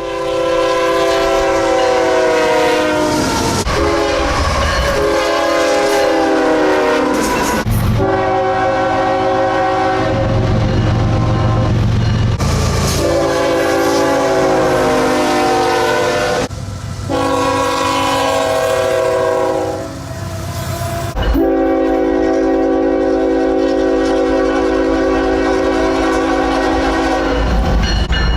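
Nathan Airchime K5HL five-chime locomotive horns sounding a run of long, loud chords, several soundings in a row with abrupt cuts between them every few seconds. A low locomotive rumble sits under some of the blasts.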